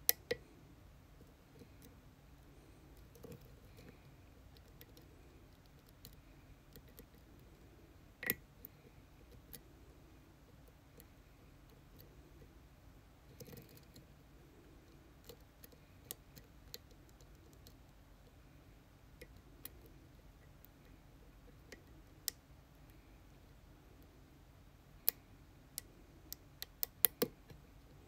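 Sparse small metallic clicks from lock picking tools working the pins of a challenge lock, with a quick run of clicks near the end.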